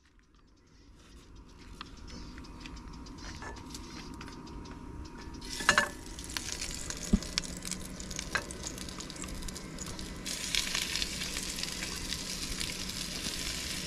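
Breaded chicken escalopes sizzling in hot oil in a small frying pan. The sizzle fades in at the start and grows louder and brighter about ten seconds in, with a single knock a little before six seconds.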